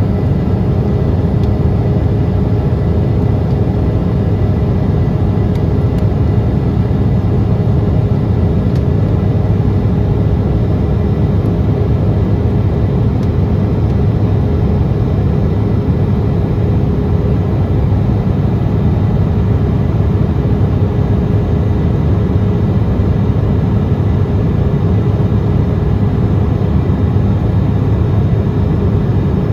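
Steady cabin noise inside an Embraer 170 airliner: its two General Electric CF34-8E turbofans and rushing airflow, heaviest in the low end, with a faint steady hum above it.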